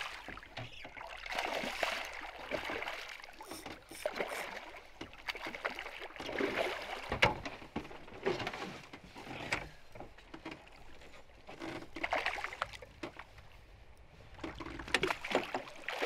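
Hooked fish thrashing at the surface beside a boat, splashing water in irregular bursts, with water sloshing against the hull and a few sharp knocks.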